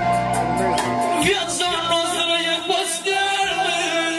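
Live Romanian lăutari party music: a man sings an ornamented, wavering melody into a microphone, entering a little over a second in, over an electronic keyboard and a steady drum-machine beat.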